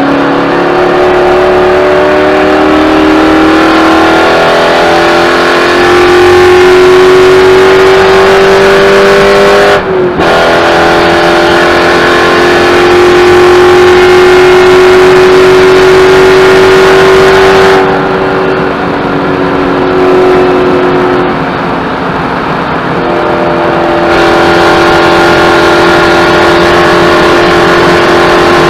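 Spec Corvette's V8 engine under hard throttle, heard from inside the car, its pitch climbing slowly with a quick gear change about ten seconds in. A little past halfway it eases off, lower and quieter for several seconds, then comes back on full throttle near the end.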